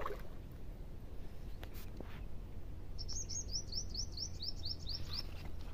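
A bird singing a quick run of about a dozen short, high notes, some five a second, starting about three seconds in and lasting about two seconds, over a low steady rumble.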